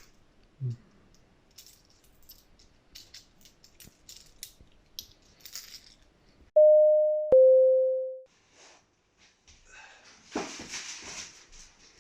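Faint clicks and rattles, then a loud two-note electronic chime, a higher note and then a lower one, each ringing for under a second before it fades. Some rustling noise near the end.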